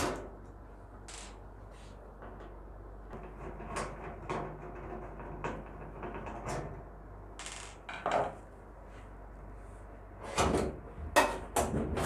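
Screwdriver clicking and scraping against the screws and sheet-metal case of a microwave oven as the panel cover screws are taken out. Near the end comes a run of louder metal knocks and scrapes as the cover is worked loose.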